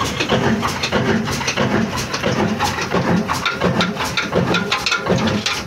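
Old single-cylinder stationary diesel engine running slowly with its large flywheel turning, giving a rhythmic chug of about three beats a second, with scraping and clicking from the belt-driven machinery over it.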